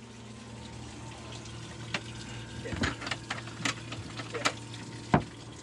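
Fibreglass cockpit locker lid on a sailboat being handled and opened: a run of sharp clicks and knocks from about two seconds in, the loudest a knock near the end, over a steady low hum.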